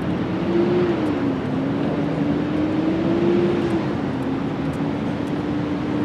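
A motor engine running steadily, its low drone wavering slowly up and down in pitch, over a constant rushing noise.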